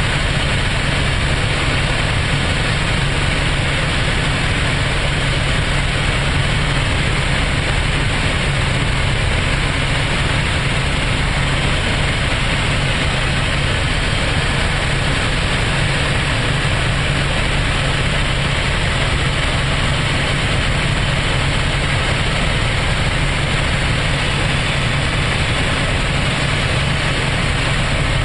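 Tour helicopter's engine and rotor heard from inside the cabin in steady flight: a constant loud rushing noise over a steady low hum.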